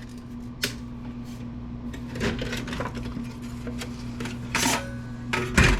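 Sheet-metal cover being worked off an old IDE optical drive by hand: scattered sharp clicks and clanks of metal, with two louder knocks near the end.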